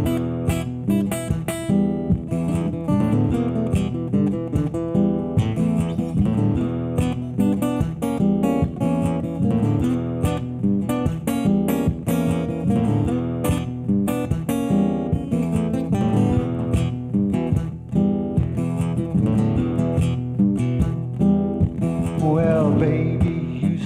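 Acoustic guitar played in a steady rhythm of strummed chords and picked notes: the instrumental intro of a live solo cover.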